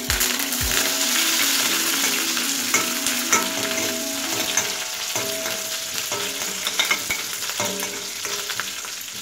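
Sliced onions, dried red chillies and curry leaves sizzling in hot oil in a stainless steel kadai, stirred with a steel ladle that clicks and scrapes against the pan. The sizzle eases a little toward the end as the onions fry.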